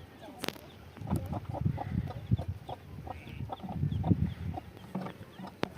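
Chickens clucking in short repeated calls, with a sharp click about half a second in and another near the end.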